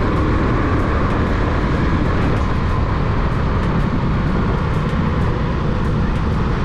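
Steady wind rush and road noise from riding a Suzuki Smash 115 motorcycle, with its small single-cylinder four-stroke engine running underneath.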